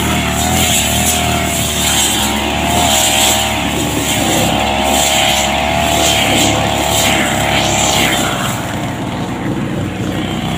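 Petrol brush cutter running steadily while cutting long grass; its engine note wavers slightly up and down.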